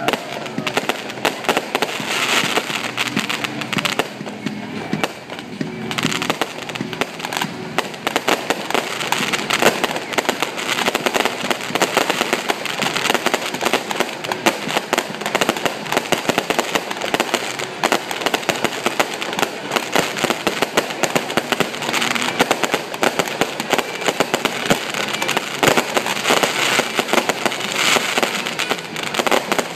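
Aerial fireworks display: a dense, continuous barrage of bangs and crackling bursts.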